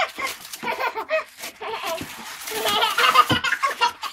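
Toddlers laughing and squealing in short giggling bursts, with short knocks and rustles from the foam and cardboard packing they are handling.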